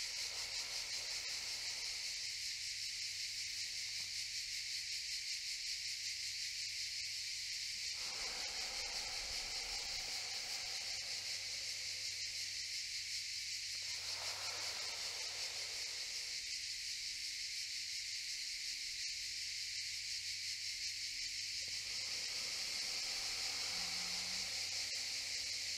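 Cicadas singing in a steady, high, rapidly pulsing drone, with soft breaths of a breathing exercise, drawn in through the teeth and let out through the nose, heard a few times beneath it.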